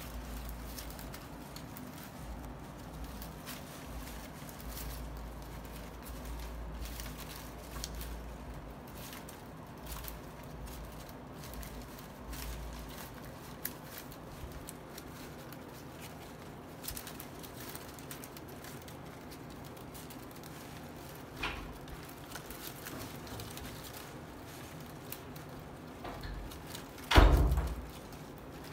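Rustling and faint crackling of palm leaf strips being handled and woven by hand, with scattered soft clicks and one louder thump near the end.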